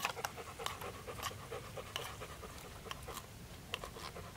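A dog panting with quick, even breaths, about three a second.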